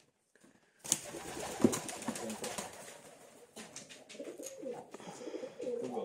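Pigeon cooing in a small room: low, wavering coos in the second half, after a couple of sharp knocks and rustling near the start.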